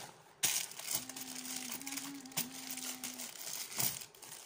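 Plastic packaging crinkling as it is handled and pulled apart, starting suddenly about half a second in, with sharper crackles along the way.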